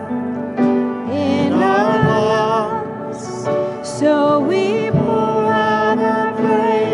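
Worship song sung with instrumental accompaniment: voices holding and gliding between notes over sustained chords.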